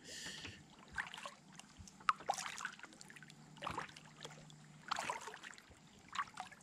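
Kayak paddle blades dipping and pulling through lake water in a steady stroke rhythm: about six swishing splashes, one every second or so.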